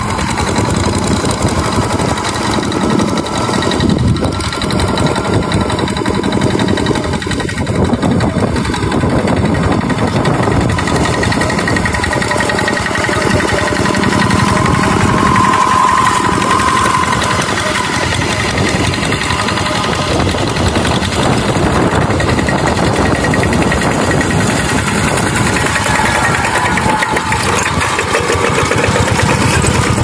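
Two-wheel walking tractor's single-cylinder diesel engine running steadily and loudly while it pulls through a flooded rice paddy on cage wheels.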